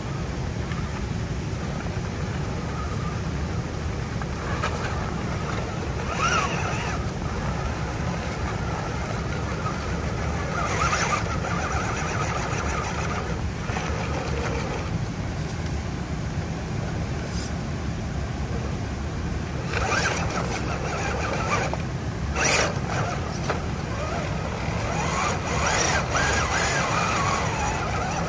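Electric drive of an RC4WD Toyota Extra Cab scale RC crawler whining in several short bursts as it crawls up rock, the longest near the end, with a few sharp knocks of tyres and chassis on stone. A steady low rumble runs underneath.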